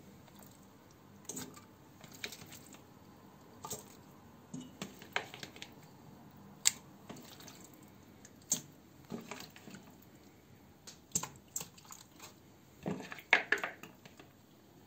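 Raw chicken bone pieces dropped one at a time into a stainless steel pot, making irregular knocks and clinks against the metal, with a quicker cluster near the end.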